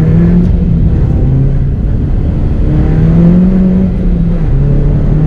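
Mini JCW GP2's turbocharged 1.6-litre four-cylinder engine pulling away and accelerating through the gears, heard from inside the cabin. The revs climb and fall back twice as it is shifted up.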